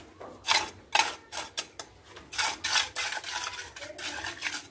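Mason's trowel scraping and smoothing the surface of a freshly cast wet concrete slab in short, irregular strokes.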